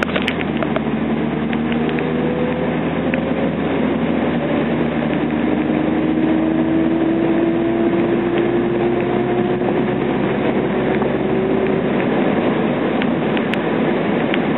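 Mazda Roadster NB6C driving under power, with road and drivetrain noise and a thin whine whose pitch climbs slowly as speed builds. The whine comes from the rear and dies off throttle, which the owner takes to be the ATS carbon differential.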